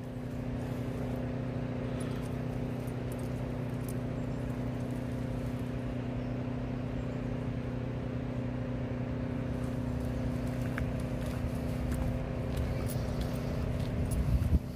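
Distant engine-driven pump running steadily across the river, a low even drone that by the sound of it is pumping out a flooded house. Footsteps on a dirt path, and a short gust of wind on the microphone near the end.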